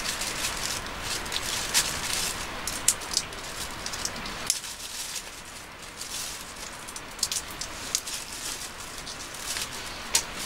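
Thin plastic carrier bag rustling and crinkling in irregular bursts as hands untie and open it, over a steady hiss that eases a little about halfway through.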